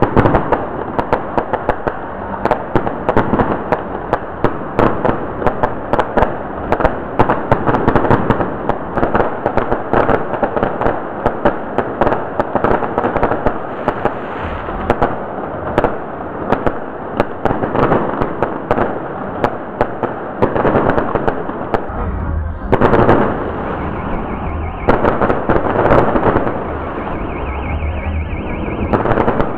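Aerial fireworks crackling: a dense, unbroken run of sharp pops and crackles from bursting crackle stars. The run eases about three-quarters of the way through, then comes back in two or three more bursts.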